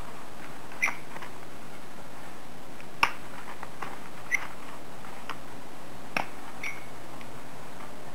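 A plier-type hand stapler clicking shut on folded paper units about five times, the sharpest click about three seconds in, over a steady hiss.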